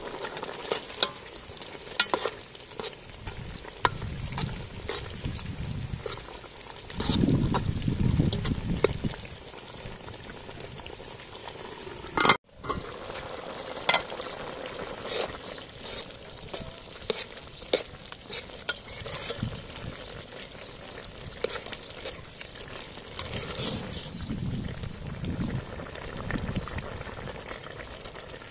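Soup boiling hard in an aluminium stock pot, a steady bubbling, with a metal ladle stirring and clinking against the pot many times. A few low rumbling stretches come and go, and the sound cuts out for an instant about twelve seconds in.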